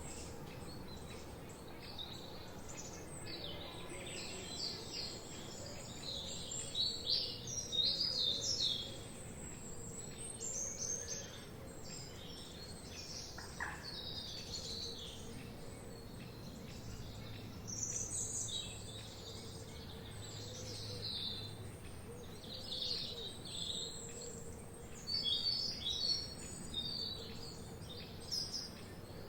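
Several songbirds singing and chirping, many short, rapid calls overlapping, over a faint steady background hiss.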